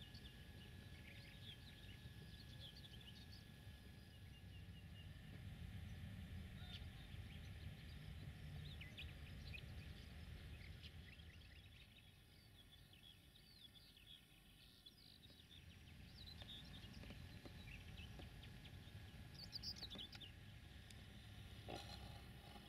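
Faint outdoor birdsong: many short chirps and trills from small birds over a low steady rumble.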